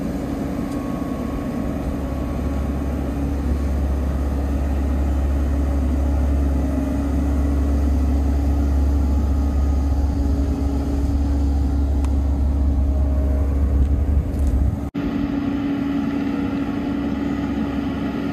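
Wise boat-yard travel hoist running steadily as it drives along carrying a yacht in its slings, a steady engine hum over a low rumble. The sound breaks off for an instant about fifteen seconds in, then carries on with less rumble.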